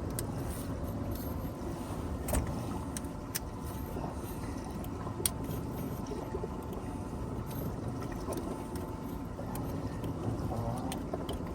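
Steady low rumble of a boat at sea, with a few sharp clicks, three of them close together in the first half.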